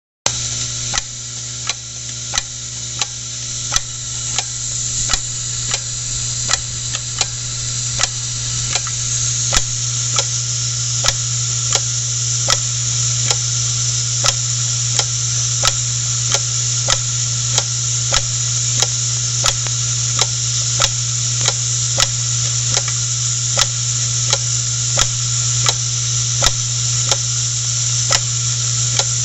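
Machinery running with a steady hum and hiss, and a sharp, evenly timed click about three times every two seconds.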